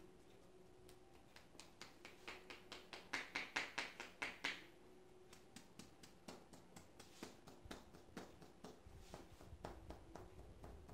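Hands tapping rapidly on a head during an Indian head massage: a quick run of soft pats, about five a second, louder for a stretch a few seconds in.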